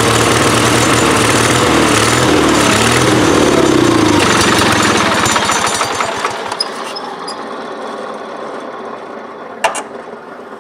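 1990 Wheel Horse 520H garden tractor engine running, its pitch dipping about two to four seconds in, then winding down and stopping about five to six seconds in; a single sharp click follows near the end. It is running only on choke, a sign that the carburetor needs work.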